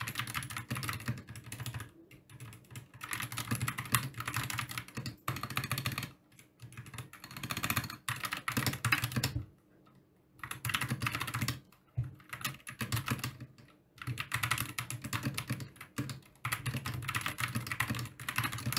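Fast typing on a Gamakay MK61 mechanical keyboard with Gateron Optical Yellow linear switches and PBT pudding keycaps. The keystrokes come in dense runs broken by several short pauses.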